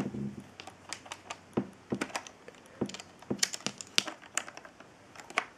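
Lego plastic parts clicking and clacking as a section of the brick-built puzzle box is slid out and handled: a run of irregular small clicks and taps.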